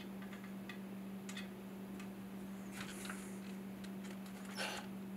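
A few faint metal clicks and taps as a small wood screw is handled and set into a brass walking-stick tip, the clearest near the end, over a steady low hum.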